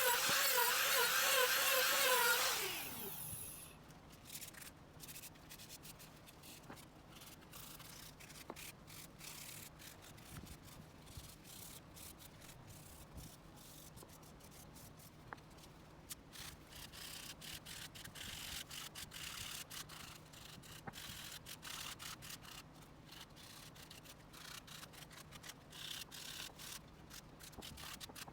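A small power tool runs with a wavering whine for about two seconds, then winds down and stops. After that, quiet uneven hand rubbing on wood with scattered small clicks, a little louder in stretches toward the end.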